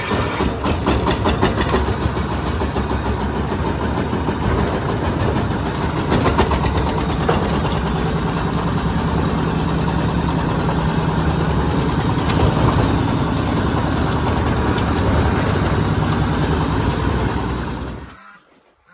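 Walk-behind power tiller's single-cylinder diesel engine running loudly with a fast, steady chugging. It stops suddenly near the end.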